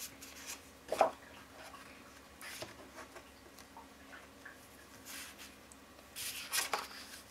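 Heavy watercolour paper pages being handled and smoothed flat by hand: a sharp tap about a second in, then several brief rubbing swishes of hands and paper, the longest near the end.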